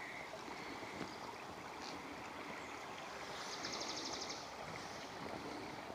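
Small forest creek flowing steadily, a soft, even water sound. A brief high, rapid trill comes in about halfway through.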